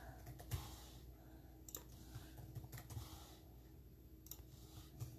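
Faint, scattered clicks of computer keyboard keys, a few isolated strokes roughly a second apart, over a low steady hum.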